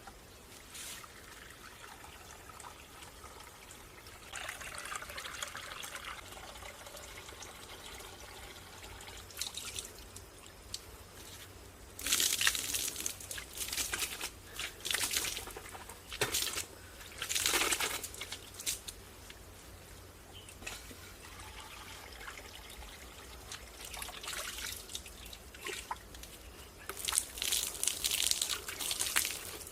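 Water being poured and splashing in irregular bursts of a second or so, over a faint steady trickle.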